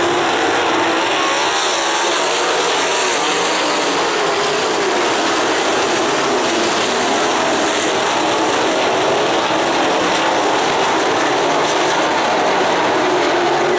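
A field of winged sprint cars racing on a dirt oval, their V8 engines running together as a loud, continuous drone of several overlapping engine notes that rise and fall.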